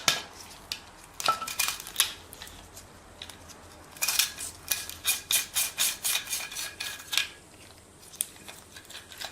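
Sharp clicks and clatters of hard parts being handled and knocked together, sparse at first, then a quick run of them in the middle, with a few more near the end.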